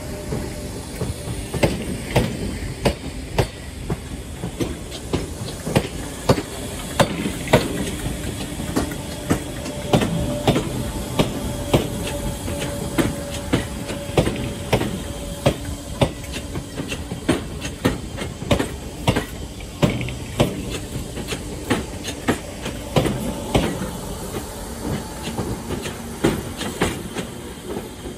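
Train running along the track, its wheels clacking over rail joints with sharp clicks every second or so, over a steady rumble.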